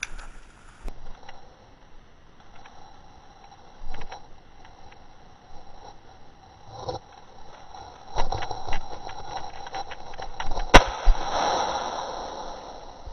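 Footsteps and brushing through twigs and undergrowth, crackling more densely toward the end, then a single shotgun shot, the loudest sound, with a short echo fading after it.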